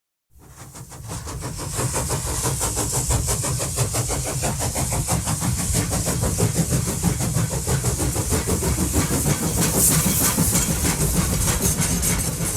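Railway train running, fading in from silence over the first two seconds, with a fast, even pulsing beat.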